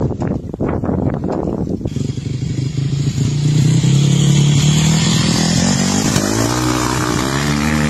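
Dirt bike engine running. It starts choppy and uneven, settles into a strong steady note after about two seconds, then drops and climbs again about six seconds in.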